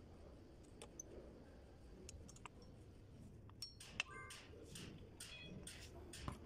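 Faint metal clicks and clinks of a screwdriver and brake parts against the Suzuki APV's rear drum-brake backing plate, the sharpest about four seconds in, with a brief metallic ring.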